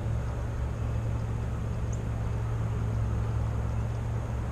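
Steady low engine hum of construction machinery running, holding one pitch throughout.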